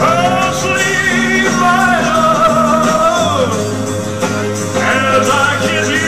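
Music: a man singing a slow ballad along with a backing track, in long held, wavering notes over a steady bass line.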